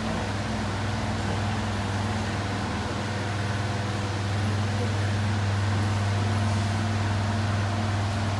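A fan running: a steady low hum over an even rushing noise.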